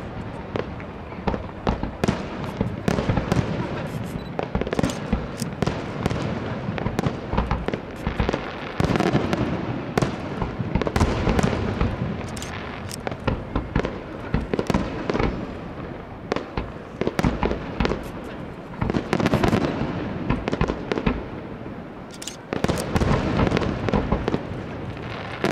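Aerial firework shells bursting in quick succession: a dense, irregular run of bangs and crackles over a continuous rumble, swelling into louder volleys about ten seconds in, again around nineteen seconds, and near the end.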